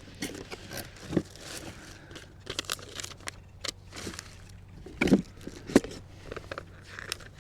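Cardboard and plastic packaging being handled: irregular rustling and crinkling, with scattered light clicks and two sharper knocks about five and six seconds in.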